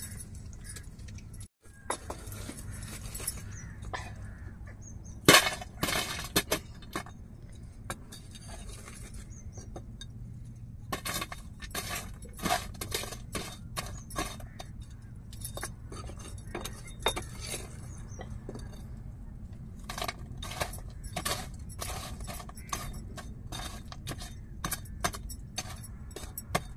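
Glowing wood-fire embers ladled onto an aluminium pot lid to cook the biryani on dum: a metal ladle scrapes and clinks, and lumps of charcoal clatter onto the lid, in several bursts of sharp clinks.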